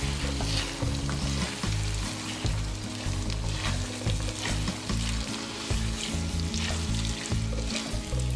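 Chicken pieces sizzling as they are stir-fried in green curry paste and split coconut milk, with repeated stirring strokes in the pan.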